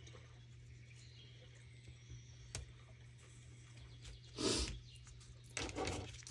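Faint handling noises of scrapbooking materials at a desk: a light click about two and a half seconds in, then two short rasping noises, the louder one just past four seconds, over a low steady hum.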